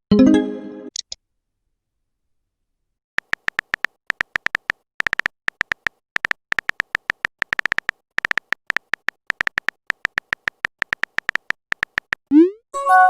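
Phone-keyboard tap sound effects for a text chat: many quick, irregular clicks as a message is typed. A short electronic message chime sounds right at the start, and near the end a quick rising swoop is followed by a ringing chime as a message is sent.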